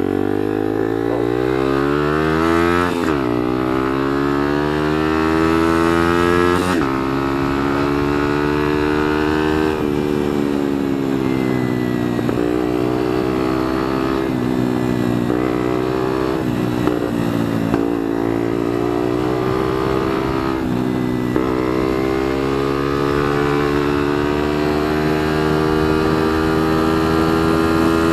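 Bullit Hero 125 scrambler's single-cylinder 125 cc four-stroke engine pulling away and accelerating, its pitch climbing and then dropping at upshifts about three and about seven seconds in. It then runs at a steady cruise with small dips as the throttle eases and opens.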